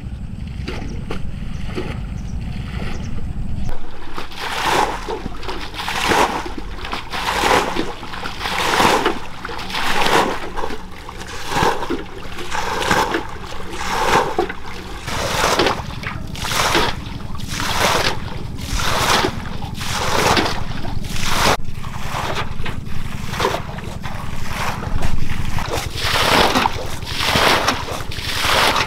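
Water splashing in a steady rhythm, about once a second, starting a few seconds in, over a steady low hum.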